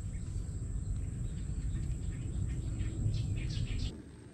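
Low, fluctuating wind rumble on the microphone, with faint bird chirps in the second half. The sound drops away shortly before the end.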